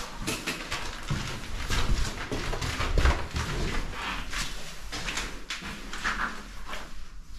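Irregular knocks, clicks and scuffs, with heavier thumps about two and three seconds in.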